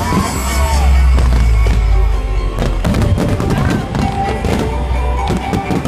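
Fireworks going off over loud music: a heavy low rumble of booms, then a quick run of sharp crackling pops in the second half.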